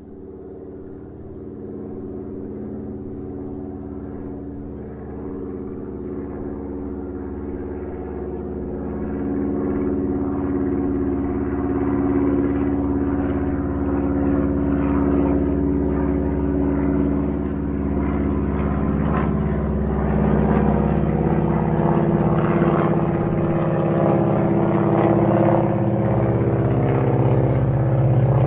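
Small airplane's engine droning steadily, growing gradually louder throughout.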